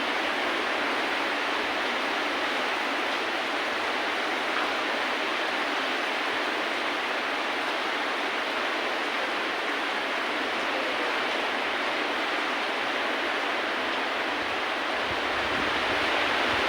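Steady rain falling, an even hiss with no pauses. A low rumble joins in near the end.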